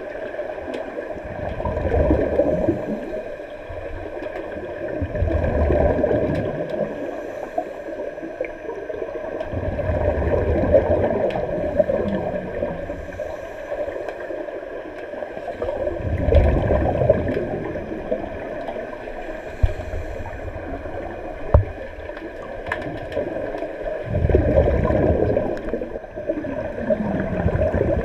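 Scuba regulator exhaust bubbles heard underwater in a swimming pool: a diver's breath out leaves as a rumbling, gurgling burst of bubbles every few seconds, about five times, over a steady faint hum.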